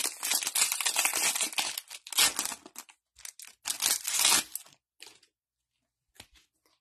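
Foil wrapper of a Prizm football retail pack being torn open and crinkled by gloved hands: dense crackling for about two seconds, then a few shorter crinkles that die away about five seconds in.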